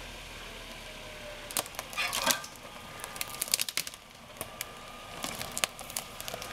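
Dry sticks and branches cracking and snapping in irregular sharp clicks from about a second and a half in, under a Suzuki Sidekick crawling slowly in four-wheel-drive low. The vehicle's low hum runs faintly underneath.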